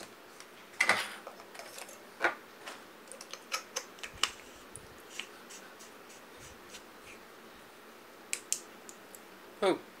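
Handling of a tactical flashlight: an 18650 lithium-ion battery is slid into the aluminium body and the tail cap is fitted, giving scattered light clicks and scrapes. Two sharp clicks near the end as the tail switch turns the light on.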